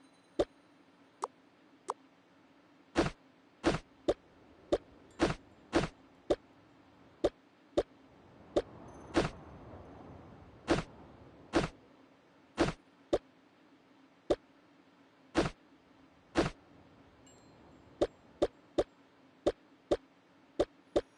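Hard objects being handled and set down: a long run of sharp, irregular clicks and knocks, several a second at times, over a faint steady low hum. There is a soft rustling swell about halfway through.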